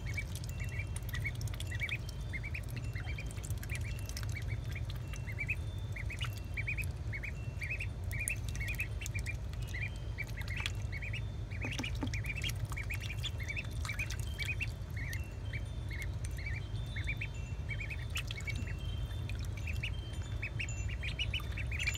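Two-week-old magpie ducklings peeping constantly, several short high peeps a second, over a steady low hum. Light splashes and clicks of water come as they swim and dabble.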